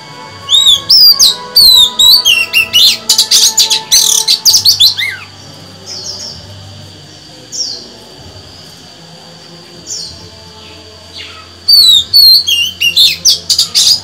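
Female oriental magpie-robin singing: rapid runs of loud whistled and chattering notes for several seconds, a few single call notes, then another fast run near the end.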